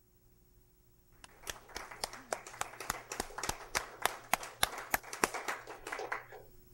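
A small group of people applauding with scattered hand claps, starting about a second in and dying away just before the end.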